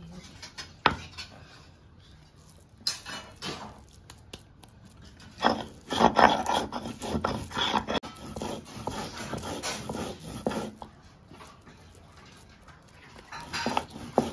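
Stone roller scraping and knocking back and forth on a grooved stone grinding slab (shil-nora), grinding fried pumpkin seeds into a wet paste. There is a sharp knock about a second in, and the grinding is loudest from about five to eight seconds in.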